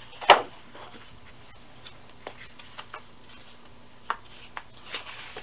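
Sheets of 12-by-12 scrapbook paper being handled and turned over on a cutting mat: one sharp paper rustle just after the start, then scattered light taps and soft rustles as the sheets are shuffled.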